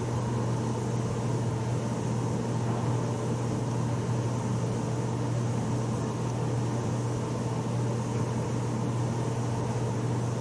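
Steady low machine hum with a strong, even drone and fainter steady tones above it, unchanging throughout.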